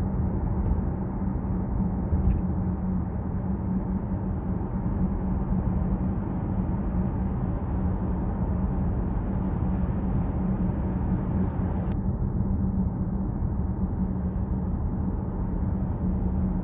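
Steady road and engine noise inside a Chevrolet Trax crossover's cabin while driving at highway speed, a constant low drone with tyre rumble. There are a couple of faint ticks.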